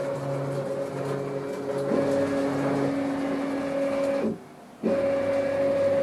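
Homemade 2×2 m gantry CNC router's axis drives whining as the spindle carriage is jogged along the axes, with the spindle not running. A steady whine of several tones shifts in pitch about two seconds in, cuts out for half a second a little past four seconds, then resumes.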